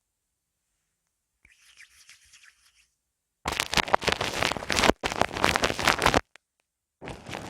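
Ear massage on a binaural microphone: hands rubbing over the mic's ears, a faint soft rub about a second and a half in, then loud, dense scratchy rubbing for nearly three seconds that stops, then starts again near the end.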